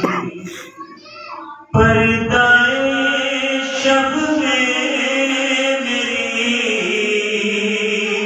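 A man's solo voice chanting a salam, an Urdu Shia lament, into a microphone with no instruments. A line dies away in the first second and a half, then the next comes in strongly just under two seconds in and is drawn out in long held notes.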